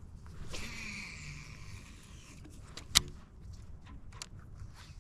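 Fishing reel spool whirring for about two seconds as a jerkbait is cast out. Then comes one sharp click about three seconds in, with a few faint ticks after it.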